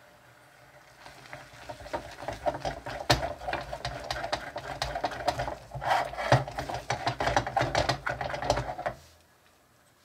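Spoon stirring and scraping thick, bubbling melted gummy candy in a small metal saucepan, with rapid crackling and popping as the sugar scorches. It starts about a second in and stops abruptly near the end.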